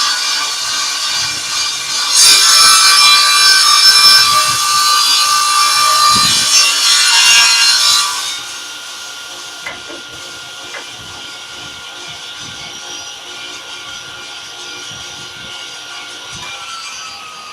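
Table saw ripping a long wooden board, the blade cutting loudly for about the first eight seconds, easing briefly about a second in. Then the saw runs on without cutting at a lower level with a steady whine, which starts to drop in pitch near the end as the blade winds down.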